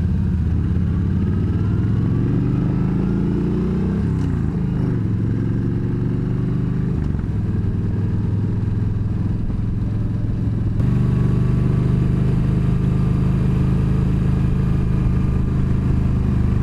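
V-twin cruiser motorcycle engine pulling away and accelerating, its pitch rising, dropping at a gear change about four seconds in and again around seven seconds, then running steadily at cruising speed. About eleven seconds in the sound cuts abruptly to a louder, steady engine drone.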